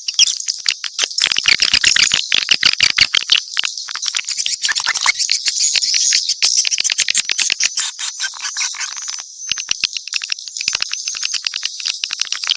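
Swiftlet call (suara panggil) lure track: a dense, continuous mix of rapid twittering chirps and clicks from many swiftlets, the kind of recording played from bird houses to attract swiftlets to nest.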